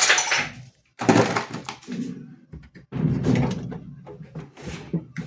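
Knocks, thunks and scraping of a washing machine's dismantled metal parts being handled and set down, in several separate bursts.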